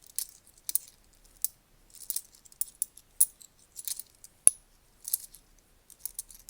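Ten-pence coins clinking lightly and irregularly as they are sorted through by hand, with one sharper ringing clink about four and a half seconds in.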